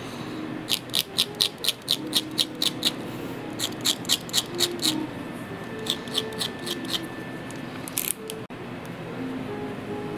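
Quick, short scratching strokes of a snap-off utility-knife blade on leather, scoring a small patch of the grain surface. The strokes come about five a second in three runs, with a single last stroke about eight seconds in, over soft background music.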